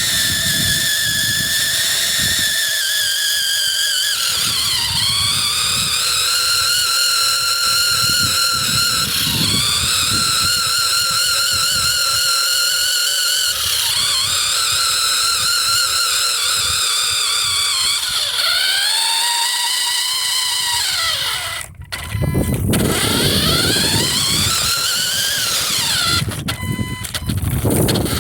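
An electric RC car's motor and gears whining, the pitch sliding up and down over and over as it speeds up and slows, with wind gusting on the microphone. About 22 seconds in the whine cuts out for a moment, then starts again.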